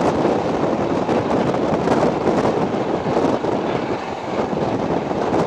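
Steam-hauled train running at speed, heard from a carriage window: a steady, loud blend of wheel and rail noise, rushing air and the exhaust of the LNER A4 Pacific 60009 Union of South Africa working hard at the head of the train.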